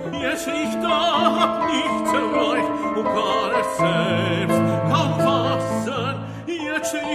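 A tenor singing a German art song with wide vibrato, accompanied by piano.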